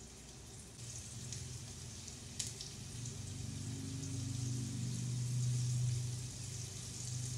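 Floured squirrelfish pieces sizzling as they fry in a stainless steel skillet, with a few small clicks as pieces are laid in the pan. A low hum swells underneath in the middle.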